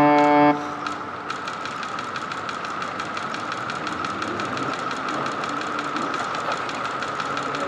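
A held music chord cuts off about half a second in, giving way to rapid, evenly spaced mechanical clicking, several clicks a second, over a steady hiss.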